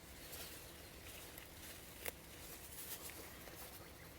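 Faint rustling of plant leaves being handled and pulled off by hand, with one sharp snap about two seconds in.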